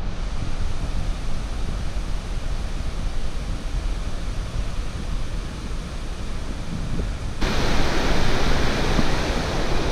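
Steady low wind rumble on the microphone with a faint hiss, then, from about seven and a half seconds in, the loud even rush of the young Po river pouring over stepped weirs and rocks.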